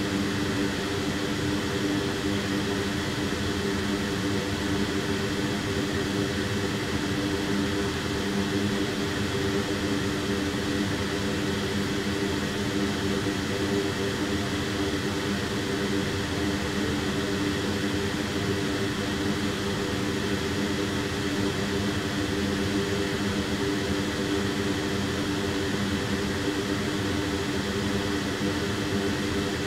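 Steady whir of a small electric fan with a low hum in it.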